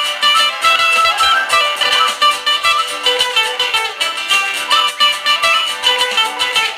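Live Andean band playing an instrumental passage: strummed acoustic guitar under a held melody from a quena flute.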